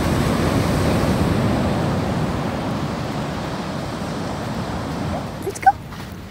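Ocean surf on the beach: the rush of a breaking wave swells in the first second, then slowly dies away. Near the end comes a brief, short high-pitched sound.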